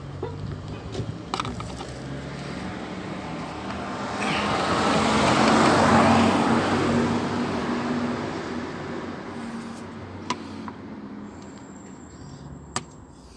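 A motor vehicle driving past, its road noise swelling to a peak about halfway through and then fading away over a low engine hum. A few light sharp clicks.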